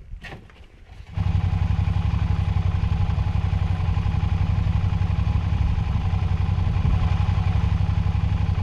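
A few light clunks, then a motorcycle engine comes in abruptly about a second in and idles steadily.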